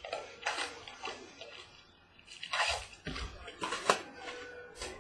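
Foil wrapper of a trading-card pack crinkling and tearing as it is opened by hand, in a run of short rustling bursts, the loudest a little before four seconds in.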